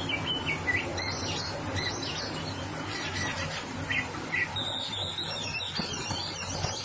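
Oriental magpie-robin (kacer) singing a fast run of short, quickly gliding whistled and squeaky notes, the varied song that bird keepers prize as full of mimicked notes.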